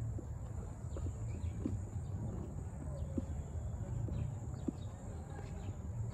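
Footsteps walking on a dirt path, about one step every 0.7 seconds, over a low steady rumble.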